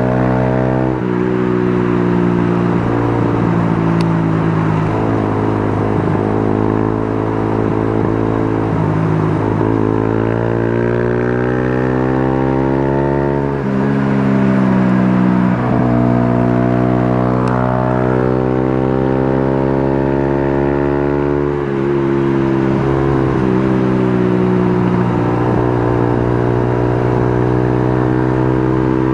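A motor vehicle's engine pulling through a run of corners, its pitch climbing and falling as the throttle opens and closes, with a few abrupt changes that sound like gear shifts.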